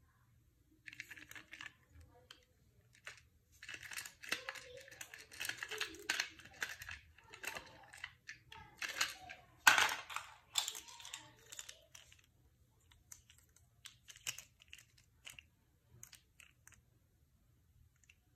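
A plastic Beyblade spinning top is launched into a clear plastic stadium and clatters and scrapes around it in rattling bursts. The loudest sharp knock comes about ten seconds in; after that only scattered light plastic clicks are heard as the top is handled.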